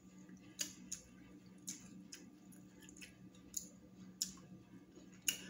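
A person eating seafood boil close to the microphone: about seven sharp, wet clicks and smacks at irregular intervals, over a faint steady hum.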